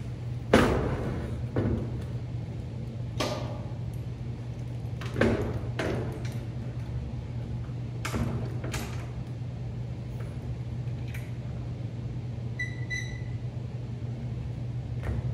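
Cast-iron Columbian bench vise being handled and set down on a steel welding table: a series of sharp metal knocks and clanks, the loudest about half a second in. Two short high beeps come near the end, over a steady low hum.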